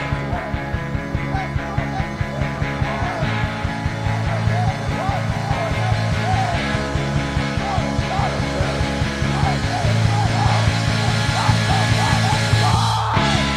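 Screamo band recording: distorted guitars and bass holding chords over fast, steady drum hits, with a wavering higher line on top. Just before the end the low end drops out briefly, then the band comes back in.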